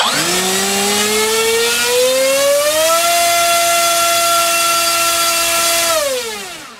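NTM PropDrive 3536 1800 kV brushless outrunner motor spinning an APC 7x6 gas propeller on a thrust test rig, its whine rising steadily as it is throttled up over about three seconds, holding steady at full throttle for about three seconds, then winding down near the end. The full-throttle run is pushing close to 1.8 kg of thrust.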